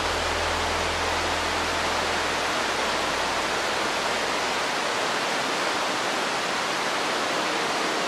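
Steady, even rush of a waterfall, falling water hissing without a break. A low hum underneath fades away in the first two or three seconds.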